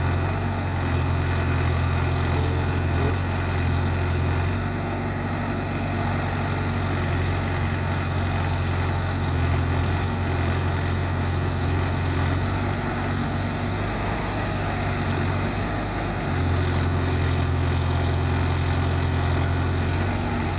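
Diesel engine of a heavy backhoe loader running steadily. Its note eases and drops a little for a few seconds past the middle, then comes back up.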